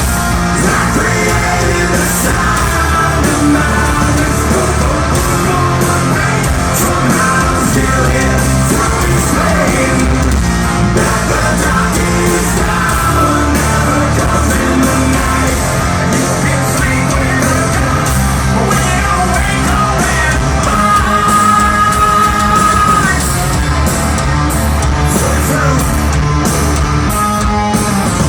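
Rock band playing live: distorted electric guitars, bass and drums under a singer's loud, shouted vocals. A high note is held for about two seconds late on.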